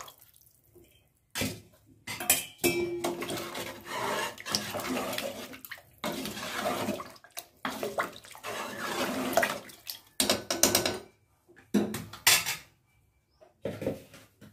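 Metal ladle stirring sambar in an aluminium pot, scraping and clinking against the pot with the liquid sloshing. The stirring stops after about ten seconds, followed by a few separate knocks of metal on the pot.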